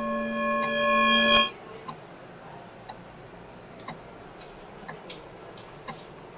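A watch ticking steadily, about one tick a second. Over the first second and a half a held, swelling musical tone builds up, then cuts off suddenly.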